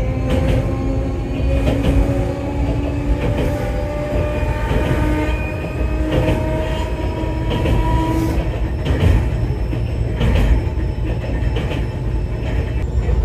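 Enoden electric train running, heard from the cab: a steady low rumble of wheels on rail with a motor whine that rises slowly in pitch as it gathers speed. Irregular clicks sound from the wheels over the track.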